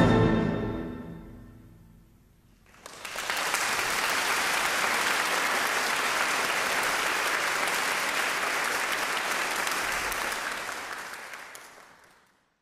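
The brass band's final chord dies away in the hall's reverberation. After a short silence, an audience applauds steadily, and the applause fades out near the end.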